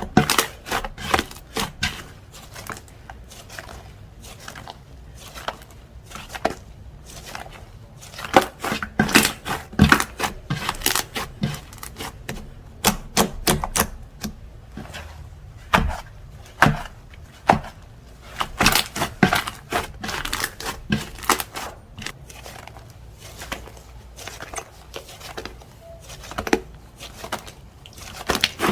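Slime being squeezed, poked and stretched by hand, giving irregular runs of sticky crackling and popping clicks with short pauses between them.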